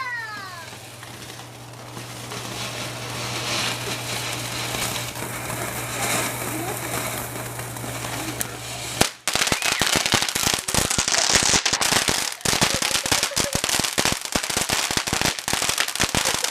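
Ground fireworks going off: a hiss that builds for about nine seconds, then a fast, dense string of firecracker pops crackling on without a break.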